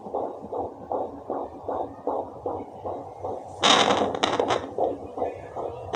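Home fetal Doppler playing a fetal heartbeat through its speaker: a fast, even whooshing pulse of about two to three beats a second, like a galloping horse. A little past halfway a loud scraping rustle comes in and covers the beats.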